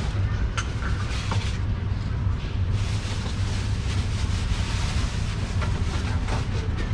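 Outdoor street ambience: a steady low rumble of passing traffic mixed with wind buffeting the microphone, with a few faint clatters.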